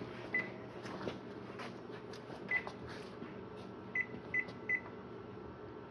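Short electronic beeps from a kitchen appliance's control panel as its buttons are pressed: two single beeps a couple of seconds apart, then three quick beeps about four seconds in, with faint button clicks between them over a low steady hum.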